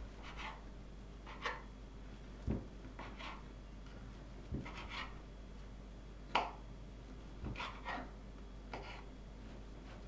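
A kitchen knife cuts through stale bread on a wooden cutting board, giving a series of short crusty crunches about once a second. Now and then the blade knocks dully against the board.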